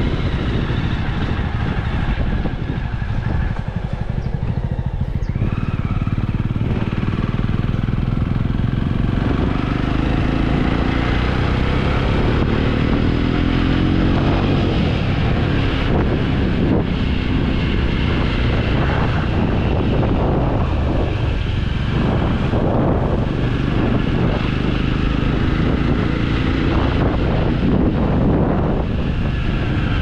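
Motorcycle engine running on the move, its pitch rising as it picks up speed about ten seconds in, with wind rumbling on the microphone.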